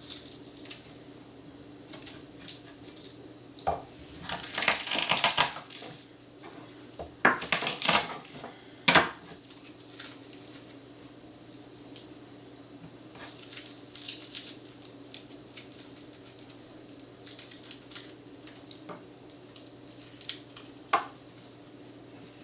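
Garlic cloves being smashed and worked on a kitchen cutting board: irregular clusters of knocks, crunches and knife clatter with quiet gaps between, the busiest stretch about four to nine seconds in.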